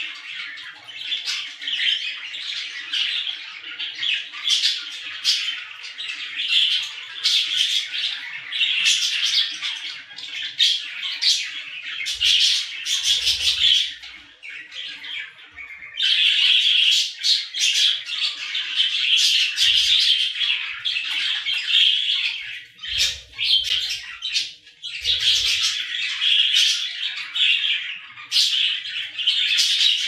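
Budgerigars chattering: a dense, continuous warble of short squawks, chirps and sharp clicks. It thins out briefly about halfway through, then comes back at full strength.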